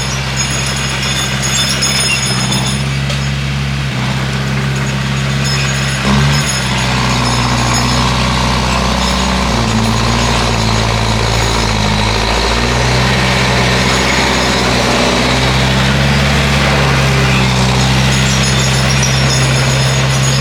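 Bulldozer's diesel engine running steadily under work, its note shifting up and down for a few seconds midway, with a short knock about six seconds in.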